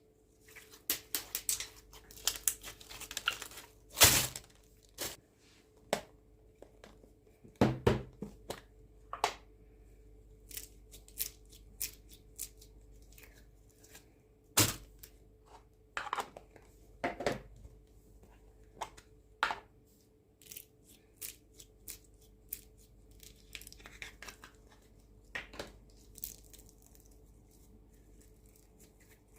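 Old slime being mixed and stretched by hand, giving irregular sharp pops and crackles with a few louder snaps. A faint steady hum runs underneath.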